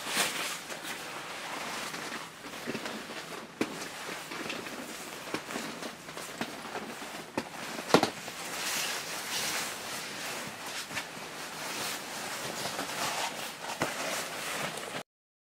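Shiny nylon snowsuit fabric rustling and swishing as the suit is moved and handled, with a few sharp knocks, the loudest about halfway through. The sound cuts off abruptly near the end.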